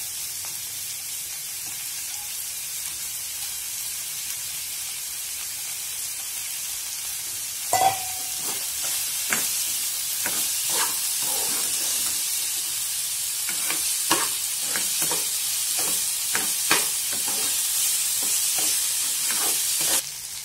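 Chopped onion, chilli, curry leaves and soaked chana dal sizzling in hot oil in a kadai, a steady frying hiss. From about eight seconds in, a steel spatula repeatedly scrapes and knocks against the pan as the mixture is stirred.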